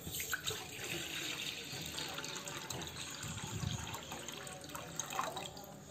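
Water poured in a steady stream from a steel cup into a steel saucepan, splashing as the pan fills; the pour fades near the end.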